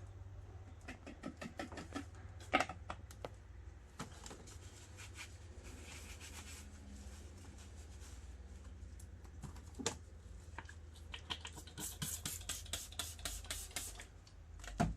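Scattered light clicks, taps and rustles of small objects being handled on a work surface, with a dense run of quick clicks about twelve to fourteen seconds in, over a low steady hum.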